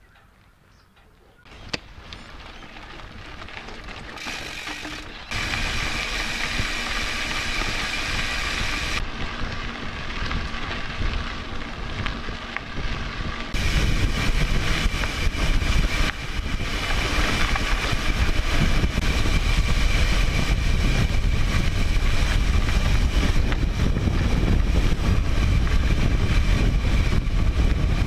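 Wind rushing and buffeting over a mountain bike camera's microphone as the bike rolls along a dirt trail, with tyre and chassis noise underneath. It starts faint, then grows louder in a few sudden steps.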